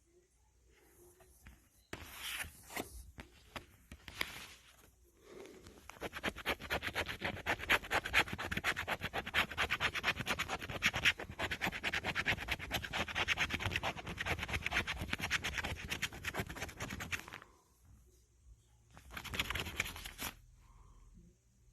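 Lottery scratch-off ticket being scratched: a few short scrapes, then a long run of rapid back-and-forth scratching strokes. It stops briefly, and one more short burst of scratching comes near the end.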